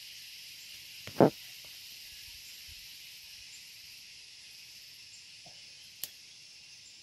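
Steady high-pitched drone of forest insects. A short loud thump comes about a second in, and a sharp click near the end.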